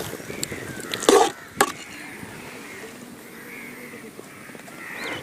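Two sharp knocks about half a second apart, about a second in, from kitchen utensils on a hard surface while masala filling is put on bread slices, followed by faint kitchen background noise.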